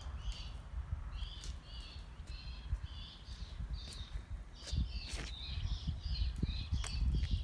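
Birds chirping in a quick, continuous run of short high notes, over a low rumble, with a few sharp clicks about five and seven seconds in.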